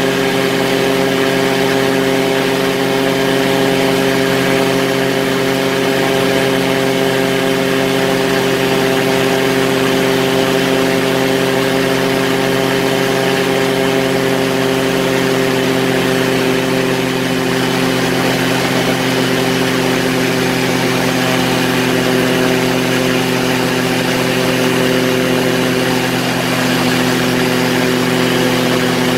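Quicksilver ultralight aircraft's engine and propeller running steadily in level flight, a constant drone that holds the same pitch throughout.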